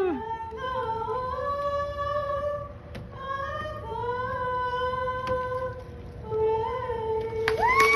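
A woman singing the national anthem solo and unaccompanied into a handheld microphone, holding long drawn-out notes of the closing phrases, with a louder, higher note swelling in near the end.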